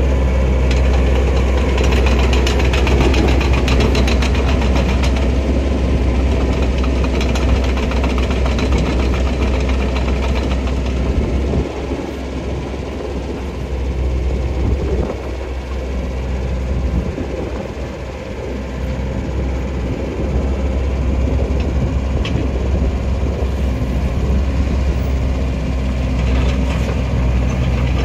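2011 CAT 306 mini excavator's diesel engine running while the machine is being operated. The engine sound drops for several seconds in the middle, then comes back up.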